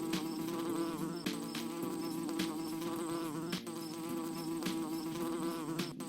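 Buzzy electronic background music: a sustained droning synth tone with a wavering higher line over it, and a regular percussive beat about every half second.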